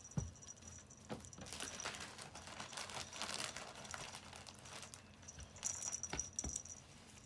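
White plastic clothes hangers rustling, scraping and clattering on carpet as a kitten paws and bites at them, with a few light sharp clicks.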